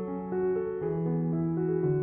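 Background music of sustained keyboard notes, with new notes coming in every half second or so.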